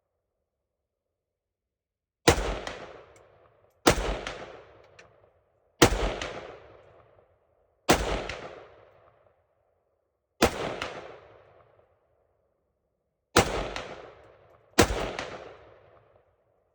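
Seven single rifle shots fired at an irregular pace, one every one and a half to three seconds. Each crack is followed by a rolling echo that dies away over about a second and a half.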